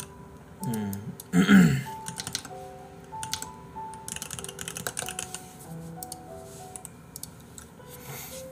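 Soft background music with a slow melody of held notes, under rapid computer keyboard typing clicks. About one and a half seconds in, a short wordless vocal sound from a man is the loudest moment.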